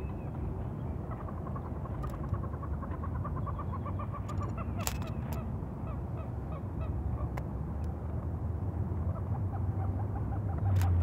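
A long run of short animal calls repeating several times a second, twice over, above a steady low rumble, with a few sharp clicks.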